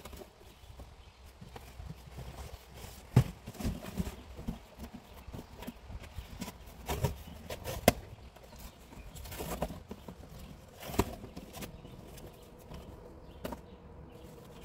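Cardboard boxes being handled, pulled open and dropped: irregular thumps and scrapes of cardboard, the loudest about three seconds in and just before eight seconds.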